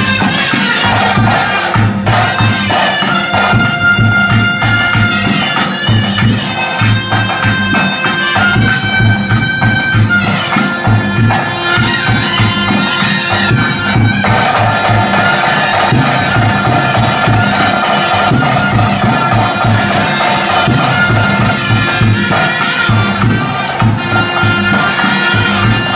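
Loud live music for a Tulu bhuta kola ritual: a reedy double-reed pipe playing a wailing melody over steady rhythmic drumming, settling into a long held note from about halfway through.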